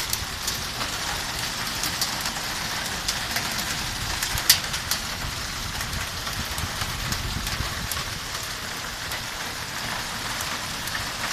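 Rain falling steadily: an even hiss with many separate drops clicking on a surface. One drop strikes louder about four and a half seconds in.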